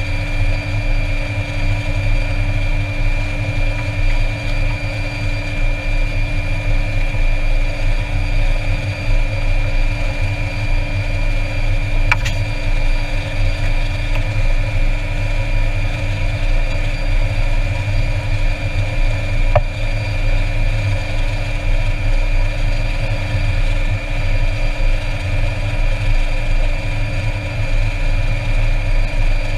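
Air Tractor 402B's turboprop engine idling on the ground, heard from inside the cockpit: a steady high turbine whine over a constant low drone, with a couple of faint clicks partway through.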